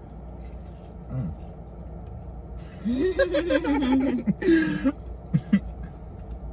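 A person laughing about three seconds in, a second of pulsing chuckle followed by a shorter burst, over a low steady hum.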